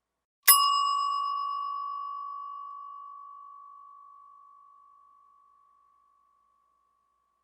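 A metal bell struck once about half a second in. It rings with a single clear, high tone that fades slowly over about five seconds, and its brighter upper overtones die away first.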